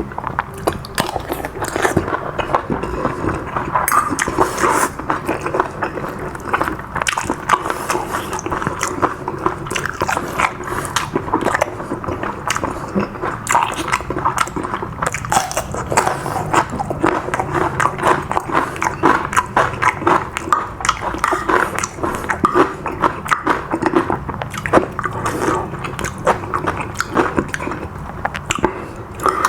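A person chewing and biting mouthfuls of spicy seafood basil stir-fry with squid and shrimp, with a dense, irregular run of small mouth clicks and smacks.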